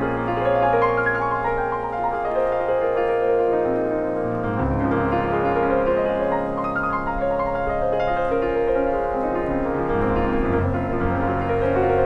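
Background piano music with long held notes over a sustained low bass, the bass note changing twice.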